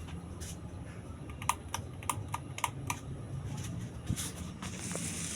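Celestique/Alaska decorative ceiling fan running with a steady low hum, and a quick run of about six light clicks in the middle.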